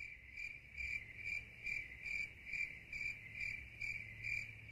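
Cricket chirping sound effect, a steady rhythm of about two high chirps a second, played over the end credits.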